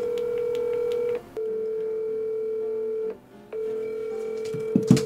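Ringback tone from a smartphone on speaker: one steady tone in stretches of about two seconds with short breaks, the sign that the called phone is ringing and has not been answered. A sharp knock near the end.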